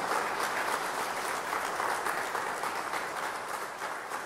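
Concert audience applauding: dense, steady clapping that slowly begins to fade near the end.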